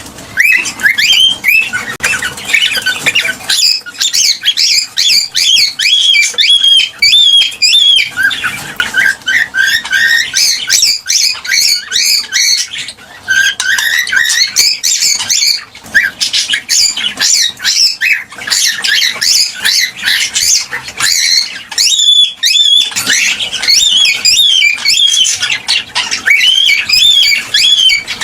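Cockatiel chirping and warbling in a fast, almost continuous run of short high notes, with a few brief pauses.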